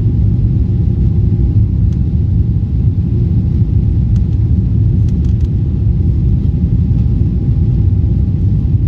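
Steady loud rumble of a Boeing 777-300's jet engines and airflow heard inside the passenger cabin during the climb after takeoff, with a faint steady whine above it.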